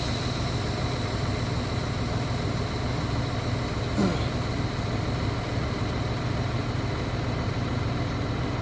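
Truck tractor's diesel engine idling steadily, with a brief faint squeak about four seconds in.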